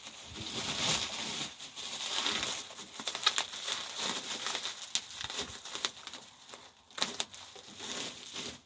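Bubble wrap and plastic packing being handled and pulled off, an irregular crinkling rustle with sharp crackles and tape tearing, a few louder snaps around three seconds in and near seven seconds.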